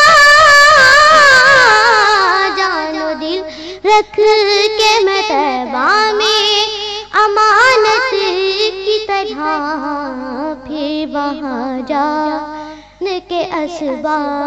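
A boy singing an Urdu naat into a microphone, with vibrato: a high held note at the start slides down over the first couple of seconds into lower, ornamented melismatic phrases.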